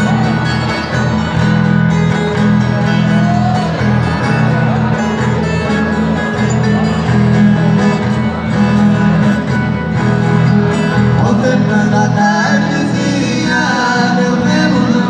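Acoustic guitar and viola caipira playing a strummed and picked instrumental passage in a sertanejo raiz duo. Two male voices come in singing near the end.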